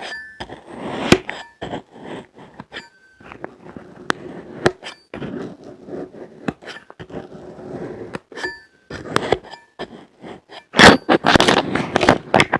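Colored magic sand being cut and crunched: crisp crumbling and scraping with many sharp clicks, some ringing briefly like a blade tapping a hard tray, and a louder burst of dense crunching near the end.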